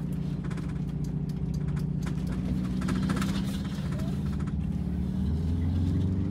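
Bluebird Wanderlodge motorhome on the move, heard from inside the cab: its engine running steadily under a scatter of light rattles and clicks from loose fittings in the coach. The engine note shifts about five seconds in.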